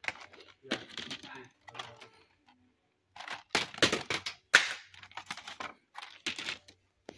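Plastic blister packs of diecast cars being handled on pegboard hooks: irregular crinkling and crackling with sharp clacks, busiest in the middle, with one sharp click loudest of all.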